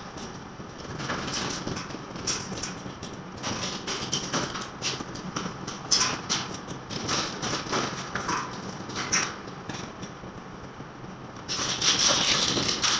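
Irregular knocks and clatter of hand tools during wall repair work, with a longer scraping noise about a second before the end.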